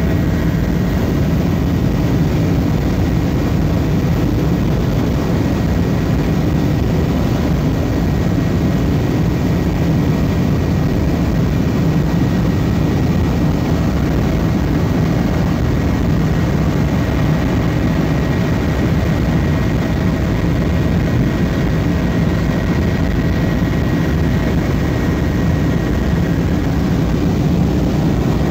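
Helicopter in flight heard from inside the cabin: a steady, loud drone of rotor and engine, with a faint steady whine above it.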